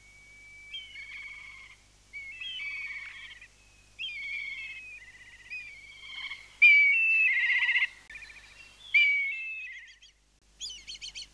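Black kites calling: a string of high whinnying calls, each a thin whistle that breaks into a quavering trill, coming about once a second and loudest a little past halfway. Near the end, a quick run of short, higher notes.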